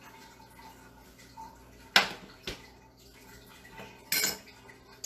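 Dishes and kitchen utensils knocking together as something is handled at the counter and fridge: a sharp clack about two seconds in, a lighter knock just after, and a brief rattle near the end.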